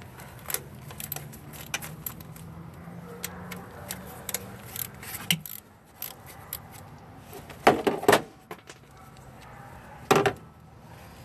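Hand ratchet with a 10 mm socket clicking and clinking as it loosens the coil-pack bolts. Two louder metal clanks follow in the second half, one near the middle and one near the end.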